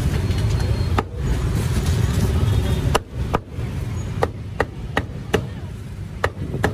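Meat cleaver chopping roast meat on a chopping block: about nine sharp strokes at uneven spacing, one about a second in and the rest coming quicker in the second half.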